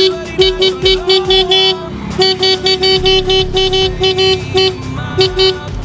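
Kawasaki Ninja motorcycle's electric horn beeped in rapid short taps, about five a second, with a brief pause about two seconds in and a few more beeps near the end. The horn working shows the bike's electrics are live on the new battery.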